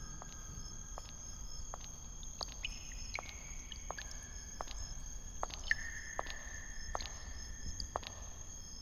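Eerie ambient film score: sustained high tones, with new ones entering at different pitches every second or two, sparse sharp clicks and a low rumble underneath.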